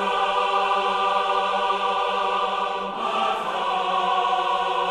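A choir of voices holds a sustained chord, which changes to a new chord about three seconds in.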